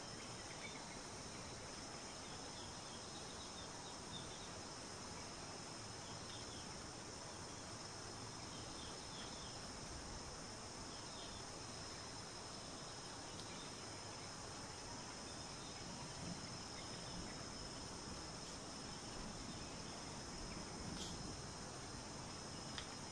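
Steady, high-pitched insect chorus, with a few faint short chirps scattered through it.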